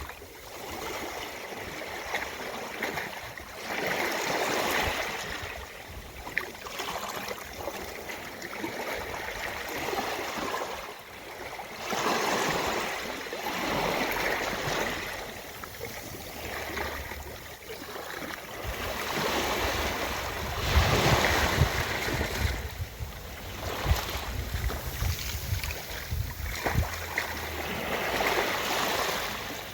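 Ocean surf washing onto a beach in repeated swells that rise and fall every few seconds, loudest about two-thirds of the way through.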